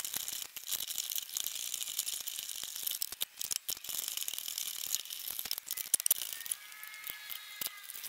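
Fast, irregular metal clicking and rattling of hand tools on the bolts of a steel mini-split mounting bracket as it is unbolted.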